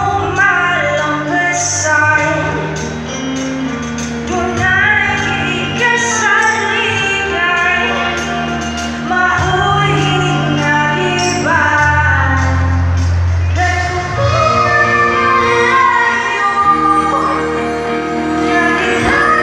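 A live band playing a song through a PA system: a singer carries the melody over bass, keyboards and drums, with cymbal hits ticking steadily along.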